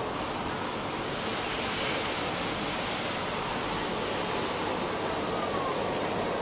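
Gas burners under a wire-mesh grill giving a steady, even hiss.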